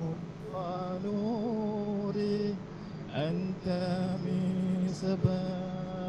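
A man singing an Arabic sholawat, a devotional hymn in praise of the Prophet, in long held notes with a wavering pitch and a short break about two and a half seconds in.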